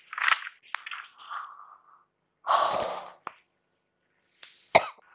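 A woman breathing hard in short, noisy gasps, the loudest a little over two seconds in, with a brief sharp vocal sound near the end.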